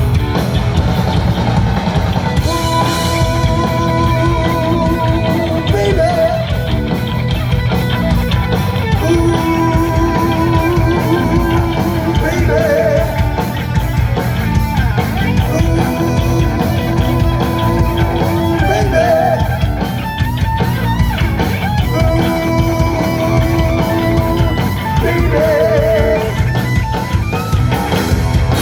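Rock band playing an instrumental passage: a lead guitar holds long notes with vibrato in repeating phrases, each ending in a short wavering turn, over steady drums and bass.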